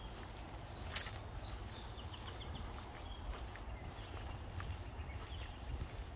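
Wild birds calling: a quick run of five or six high chirps about two seconds in and a few scattered short calls, over a steady low rumble.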